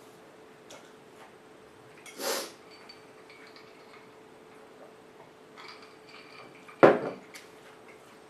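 Tableware sounds while someone eats: a short noisy rush about two seconds in, then a sharp knock with a brief ring near the end, the loudest sound, like a plate or glass set down on a table. A faint steady hum sits underneath.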